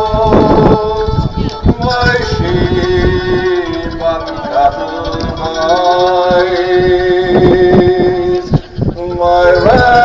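Slow music of long-held notes that step and glide from one pitch to the next, with a male voice singing.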